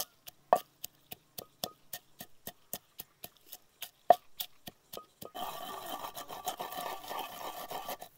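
Pestle pounding green chillies, coriander seeds and salt in a mortar, about three to four sharp strikes a second. For the last few seconds it changes to a rough, steady grinding rub as the mix is worked into a paste.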